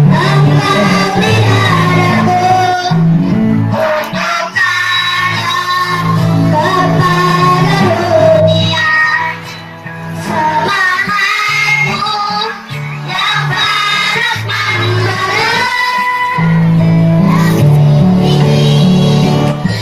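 Children's choir singing in unison over an instrumental accompaniment with a steady, stepping bass line.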